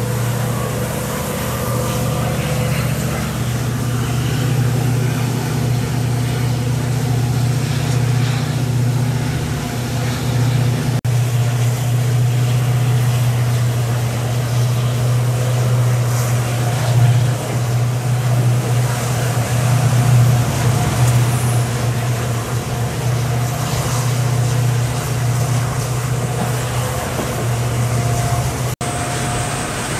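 Diesel-hauled passenger train running along the line, heard from aboard: a steady low drone.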